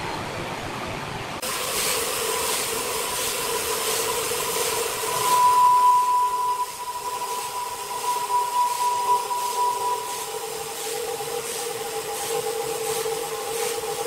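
Horizontal band sawmill running, its blade cutting lengthwise through a large log: a steady mechanical hum and hiss with a higher whine that swells about five or six seconds in.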